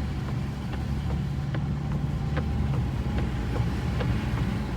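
BMW G20 sedan driving at a steady pace, heard from inside the cabin: a low, even drone of engine and road noise, with faint light ticks now and then.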